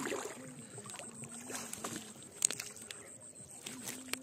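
Paddles dipping and splashing beside a small inflatable boat, with light knocks of the paddles, the sharpest about two and a half seconds in. A faint wavering hum sits behind it.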